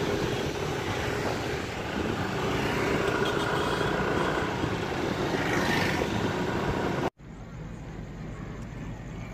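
Road traffic: steady noise of passing vehicles, which cuts off suddenly about seven seconds in and gives way to a quieter background hum.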